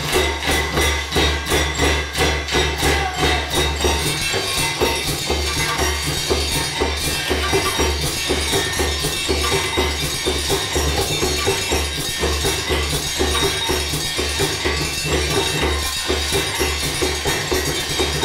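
Group percussion played on old hammers, tools and other materials: dense, rapid strikes in a steady rhythm over a regular low pulse.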